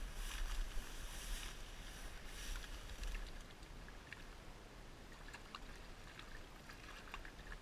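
A hooked rainbow trout splashing and thrashing at the surface of a shallow creek as it is reeled in, the splashes loudest in the first three seconds and then quieter.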